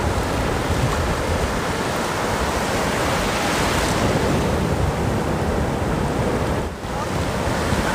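Heavy ocean surf: large waves breaking and rushing, with wind buffeting the microphone.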